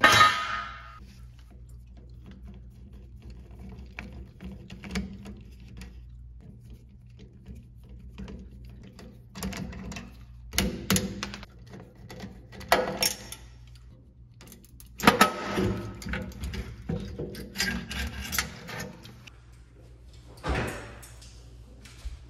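Scattered metallic clicks, clanks and rattles from working on an electric range's sheet-metal body and terminal block with a screwdriver and from handling the range, with a sharp clatter at the start, a busy stretch of clattering about two thirds of the way in, and a single knock near the end, over a low steady hum.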